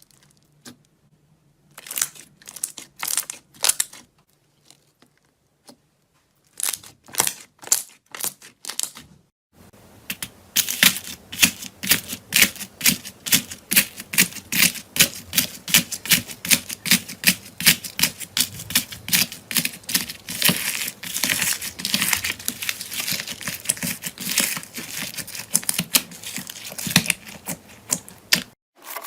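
Slime being pressed and squeezed by hand, giving crisp crackling clicks. A few scattered groups come first, then from about a third of the way in a quick, steady run of about three or four clicks a second.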